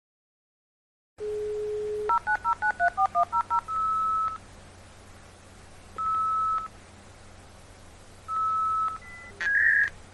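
Dial-up modem placing a call. After a moment of silence a steady dial tone plays for about a second. Then comes a quick run of about a dozen touch-tone digits, followed by three short single beeps about two seconds apart while it waits for an answer. Near the end a burst of higher tones and clicks starts the connection handshake.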